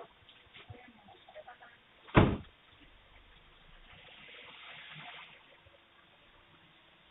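A single loud thump about two seconds in, among faint clicks and rustles. A soft hiss swells and fades around four to five seconds in.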